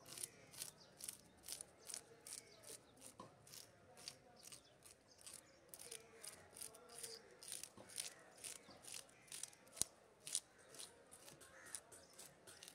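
A spiked fish scaler scraping the scales off a whole fish in quick, repeated scraping strokes, about two to three a second, with one sharper click about three-quarters of the way through.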